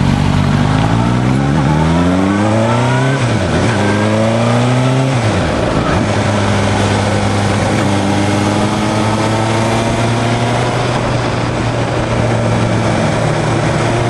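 Motorcycle engine accelerating hard through three quick upshifts in the first five seconds or so. The pitch climbs and drops back at each change. It then pulls on at a nearly steady pitch that creeps slowly upward.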